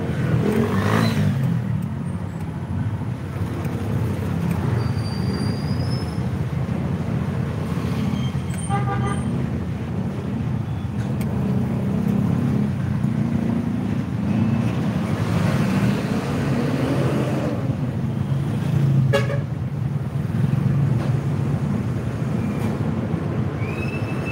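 Steady low engine and road rumble of a vehicle moving in street traffic, heard from inside the vehicle, with a short horn toot about nine seconds in.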